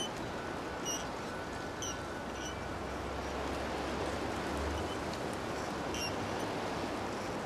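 Steady rushing outdoor ambience with several short, high bird chirps, most in the first few seconds and one more near the end, over a low rumble that fades a little after the middle.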